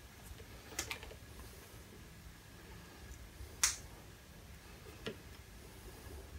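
A few light clicks and taps from a workpiece and machine vise being handled: a pair of small clicks about a second in, one sharp click about three and a half seconds in, and a softer one about five seconds in.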